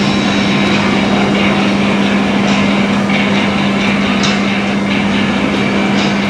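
Aircraft engine running at a steady drone with a constant low hum.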